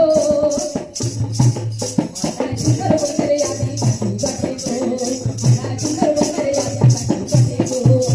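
Traditional jhumur folk dance music: a fast, even shaker rhythm over low drum beats, with a sung melody.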